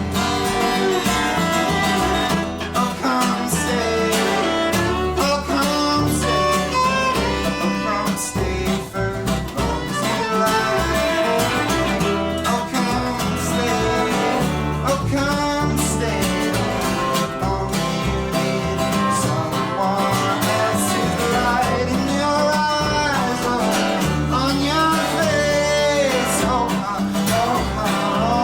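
Live acoustic folk band music: guitar with a bowed viola melody and bass.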